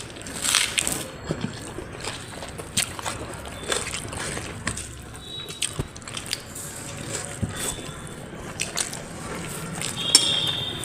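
Close-up eating sounds: rice being mashed with dal by hand and chewed, with irregular wet squelches, smacks and clicks.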